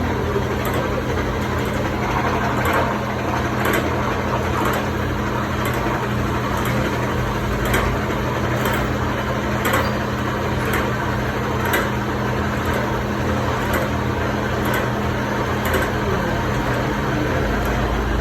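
Milling machine running steadily, with a constant motor hum and a light tick repeating about once a second.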